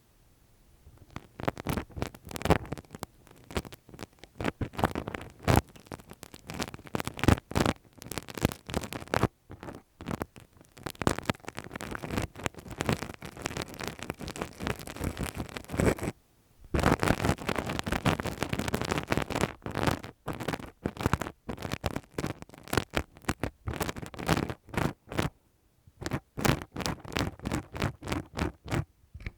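Close-miked ASMR ear-cleaning sounds: a tool scratching and rubbing on the microphone in dense runs of strokes. There are brief pauses twice, and a quicker run of separate strokes near the end.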